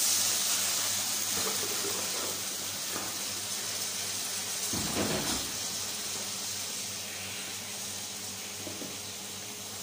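Water poured from a plastic jug into a hot kadai of fried potatoes and onion, hissing loudest at first and slowly dying down. A short knock about five seconds in.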